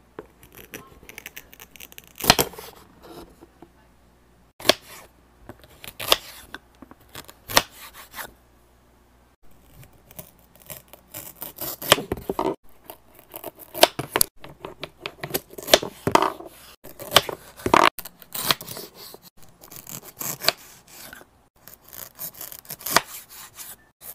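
A wooden toy knife cuts through wooden play food whose pieces are held together with hook-and-loop fastener. It gives short ripping rasps as the pieces tear apart, along with taps and knocks of wood on a wooden cutting board, repeated at irregular intervals.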